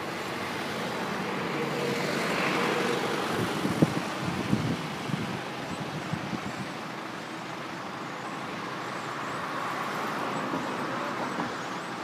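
Road traffic passing: a broad rushing noise that swells and fades twice, with a few knocks about four seconds in and faint high chirps in the middle.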